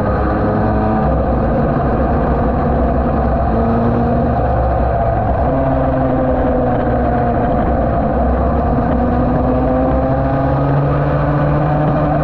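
Yamaha TD1B two-stroke twin racing engine running at speed, heard from an onboard mount. Its pitch dips about midway, then climbs steadily again.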